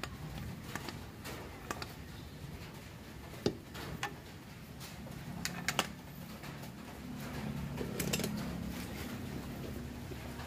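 Scattered light metallic clicks and taps as the rear brake disc and hub of a Yamaha Aerox scooter are handled by hand at the wheel axle. A low steady hum runs underneath and grows louder after about halfway.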